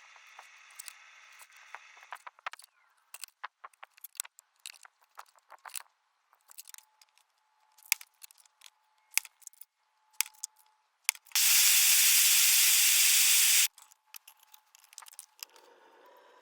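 Scattered small clicks and taps of handwork on metal for about eleven seconds, then a loud steady hiss lasting about two and a half seconds that cuts off suddenly.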